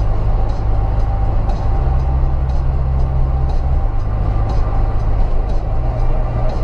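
Steady road and engine drone of a car driving at highway speed, heard from inside the cabin, with a low hum that shifts in pitch a few times and faint ticks about twice a second.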